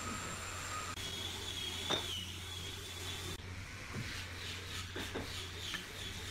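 Steady low hum of workshop background with a few light knocks and taps of wooden trim pieces being set in place and handled on a door frame. A faint, high, wavering whine runs for about two seconds, starting about a second in.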